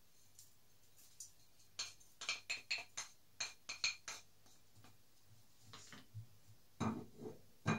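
Wooden spoon tapping and scraping sugar out of a plastic tub into a steel saucepan: a quick run of about ten light taps, then a couple of heavier knocks near the end as the spoon and tub are set down on a wooden chopping board.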